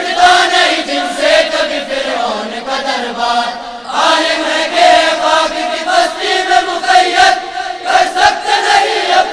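A male chorus of boys and young men chants an Urdu tarana (devotional anthem) together, with a short break between lines about four seconds in.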